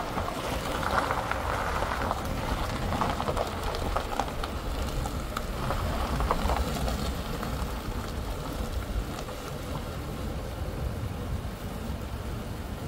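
A vehicle driving out along a driveway: a steady low engine and road rumble under a crackle of tyres on the surface, which eases somewhat after the first half.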